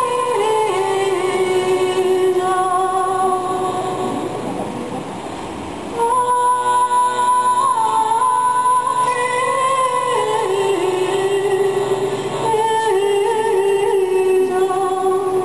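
Small accordion playing a slow melody of long held notes that step downward in pitch; each phrase fades off and a new one starts, about six seconds in and again about twelve seconds in.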